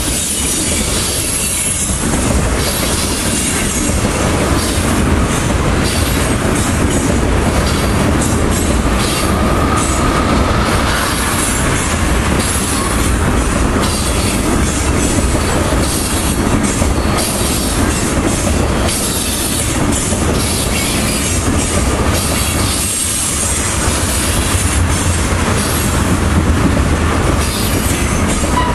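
Freight train of tank cars rolling past close by: a loud, steady rumble of steel wheels on rail, with wheels clicking over the track and a brief faint wheel squeal about ten seconds in.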